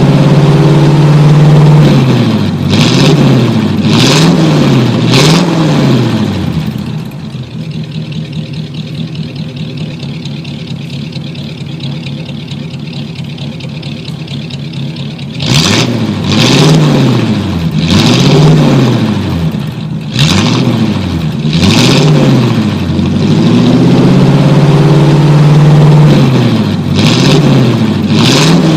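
A 1949 car's engine revved up and down repeatedly, about once a second. Around a quarter of the way in it drops to a quieter, steady idle for several seconds, then it revs up and down again.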